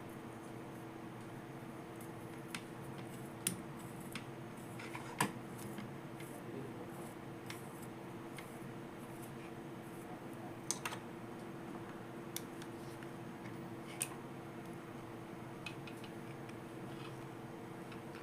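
Sharp clicks and taps of small plastic toy pieces being handled, scattered a second or more apart, over a steady faint hum.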